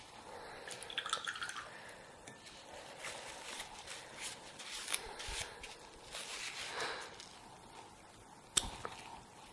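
Crumpled paper tissue rustling and crinkling as it wipes ink off a steel dip-pen nib, with a single sharp click near the end.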